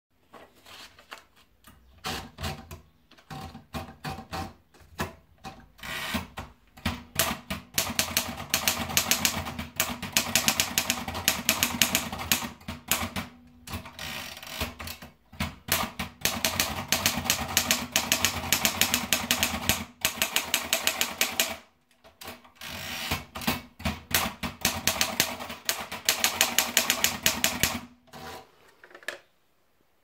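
Torpedo model 20 portable typewriter. A few scattered clicks as a sheet of paper is wound in, then fast runs of typebar keystrokes with short pauses between lines, stopping a little before the end.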